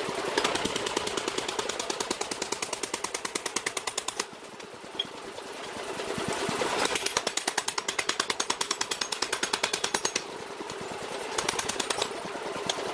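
Pneumatic forging air hammer striking red-hot steel in rapid, even blows, about six a second, upsetting a billet into a flange blank. The blows stop for a couple of seconds about four seconds in, and ease off again near ten seconds before resuming. A steady hum runs underneath.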